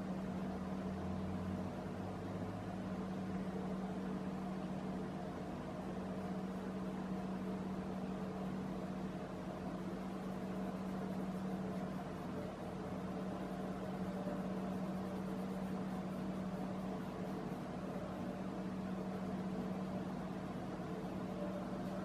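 A steady machine hum with one strong, unchanging low tone and fainter higher tones above it, like a household appliance or fan running; a deeper hum joins it for the first few seconds.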